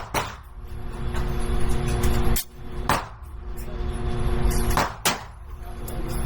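Gunshots on an indoor range, sharp and muffled, a handful spread irregularly over a few seconds, over a steady ventilation-like hum.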